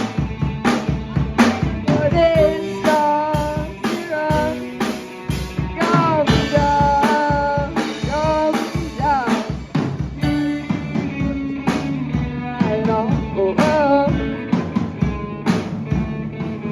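Live rock band playing an instrumental passage: a drum kit keeps a steady beat under a lead melody with bending notes, with guitar and bass filling in.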